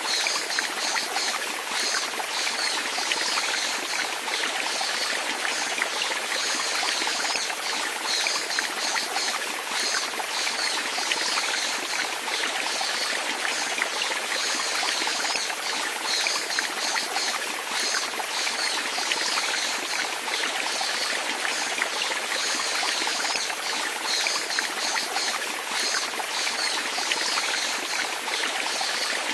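Running water, like a small stream, trickling and flowing steadily with a bright, even texture.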